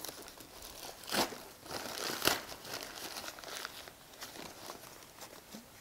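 Newspaper wrapping and soft fibre padding crinkling and rustling as they are pulled off a plant during unpacking, with louder rustles about one and two seconds in, softer afterwards.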